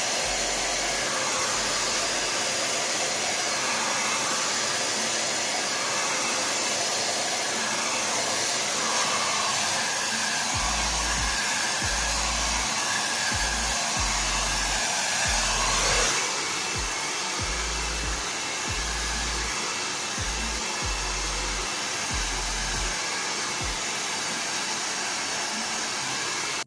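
Handheld blow dryer running steadily while drying hair, a continuous rush of air that swells briefly about two-thirds of the way through and cuts off at the very end.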